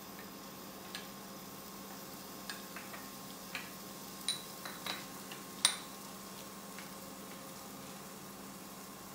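Chicken gilafi kebabs frying on low heat: a steady low sizzle with scattered sharp clicks and pops, the loudest a little past halfway.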